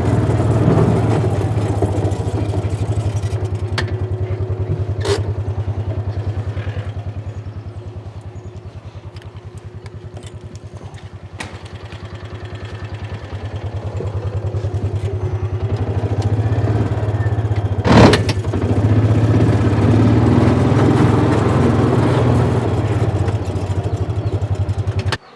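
A vehicle engine running steadily with a fast even pulse, easing off in the middle and building back up. Two sharp knocks come through, the louder about 18 seconds in. The engine cuts off abruptly at the very end.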